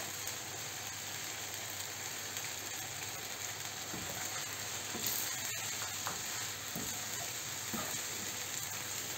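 Sooji halwa sizzling in a nonstick frying pan as melted desi ghee is poured in and stirred with a wooden spatula, with a few scrapes of the spatula against the pan.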